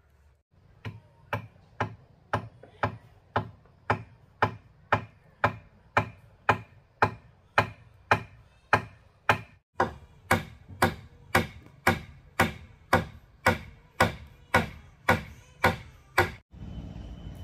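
Hammer blows at a joint in a wooden pole roof frame, evenly spaced at about two a second, with a brief pause about ten seconds in.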